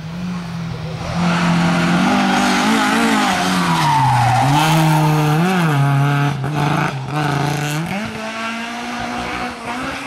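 Rally car engine at full load through a corner, its revs dropping and rising again as it brakes and accelerates, with tyres squealing on wet tarmac.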